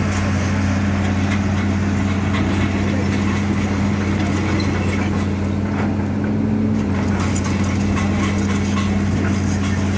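Hitachi hydraulic excavator's diesel engine running steadily as a constant low hum, its note shifting slightly about seven seconds in, with a few light metallic clinks.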